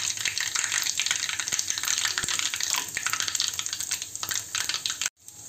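Tempering spices (mustard seeds, cumin and asafoetida) sizzling steadily in hot oil, with many small crackles as the mustard seeds pop. The sound breaks off briefly near the end.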